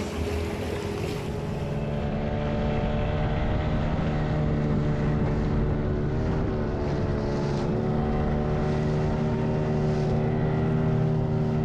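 A motorboat engine running at a steady speed, a constant hum with a slight waver in pitch.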